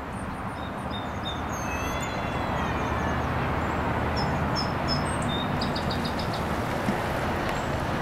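Steady rumble of distant motorway traffic, building over the first couple of seconds and then holding, with small birds chirping above it.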